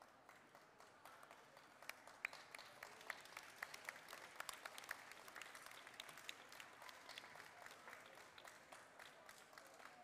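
Faint audience applause, many hands clapping, building about two seconds in and thinning out toward the end.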